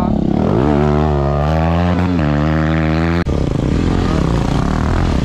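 Enduro dirt bike engine revving up and held at high revs with a slightly wavering pitch, stopping abruptly about three seconds in, followed by a lower, rougher engine rumble.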